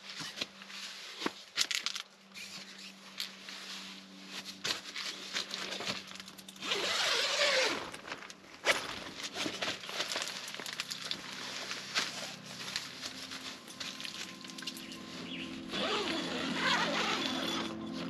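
Nylon tent fabric rustling and shuffling as someone crawls out of a tent, with a zipper pulled for about a second and a half twice, once about seven seconds in and again near the end.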